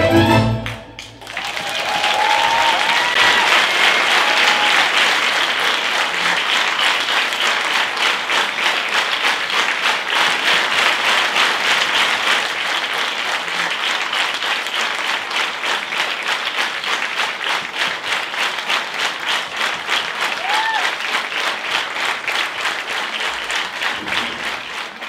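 A cimbalom folk band cuts off on its final chord, then a theatre audience breaks into loud applause that settles into steady rhythmic clapping in unison, with a few cheers near the start and again near the end.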